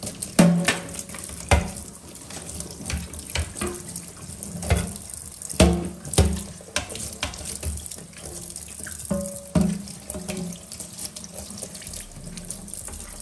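Kitchen tap running into the sink while a framed glass panel is washed under it, with scattered sharp knocks and clunks as it is handled against the sink.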